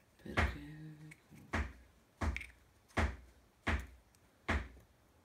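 Six sharp knocks, most under a second apart. A man's short hummed voice sound comes about a second in.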